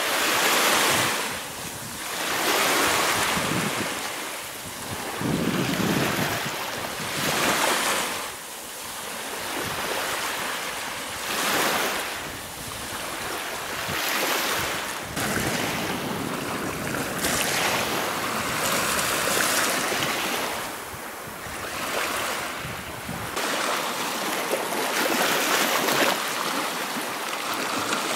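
Small waves breaking and washing up on a sandy lake shore. The surf hiss swells and falls back every few seconds.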